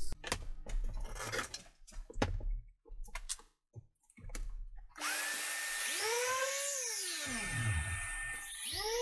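Knocks and clatter of handling at the bench. Then, about halfway in, an electric random orbital sander starts with a steady rushing noise and its motor whines up and winds down again. Near the end it starts once more and climbs to a steady whine.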